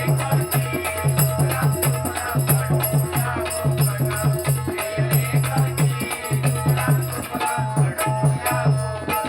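Bhajan accompaniment playing between sung lines of a gajar: a drum beating a quick, steady rhythm, with jingling hand percussion and a held melodic tone.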